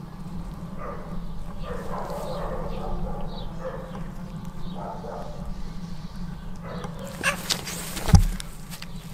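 Cats vocalizing in short calls while they play-fight, over a steady low rumble, with a sharp thump about eight seconds in as a cat bumps into the camera.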